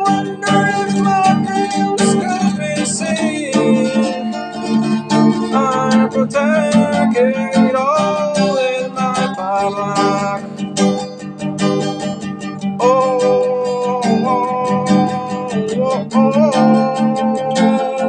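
Acoustic guitar strummed steadily with a capo on, and a voice singing a melody over it with some long held notes.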